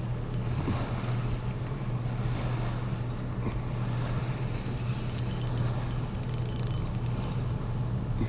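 Boat motor running steadily with a low hum, and a short run of faint high clicks about five seconds in.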